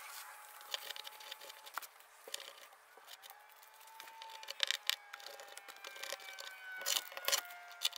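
Towel rubbing and scuffing on the tailgate paint as adhesive residue is wiped away, in scattered short strokes, loudest a few times near the end.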